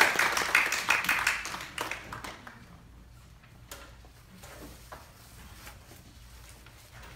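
Audience applauding, fading out over the first two and a half seconds, then a few light knocks and shuffles from the piano bench and music stand as the players settle in.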